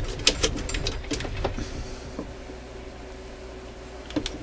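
Small sharp clicks and taps from hands working the metal record-changer mechanism of a suitcase record player while oiling it, thick in the first two seconds and again near the end, over a faint steady hum.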